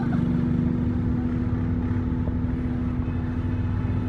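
Car engine idling steadily: a constant low rumble with a steady hum, not revving.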